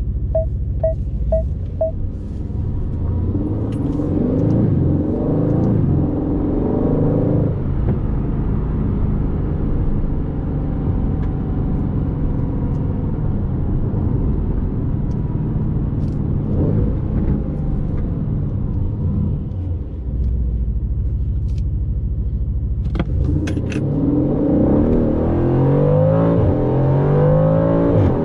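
Aston Martin Vantage's 4.0-litre twin-turbo V8 driving: it climbs through the revs a few seconds in and again near the end, and runs at steadier revs in between. A few short, evenly spaced ticks sound in the first two seconds.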